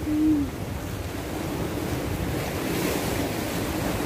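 Surf washing on the shore with wind buffeting the phone's microphone, the hiss swelling slightly near the end. A brief low tone sounds at the very start.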